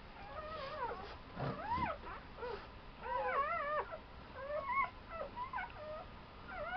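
A litter of newborn puppies squeaking and whimpering: many short, high cries that rise and fall in pitch, several overlapping at once.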